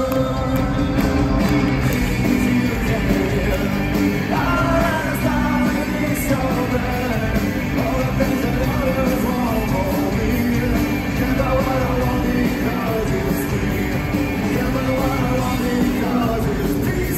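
Rock band playing live in an arena: electric guitars, bass and drums, with a man singing, heard from within the crowd.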